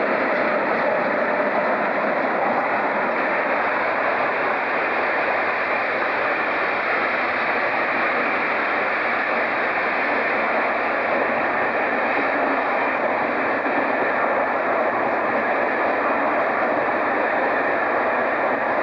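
Locomotive-hauled passenger train running past, its coaches' wheels on the rails making a steady rushing noise that neither rises nor falls.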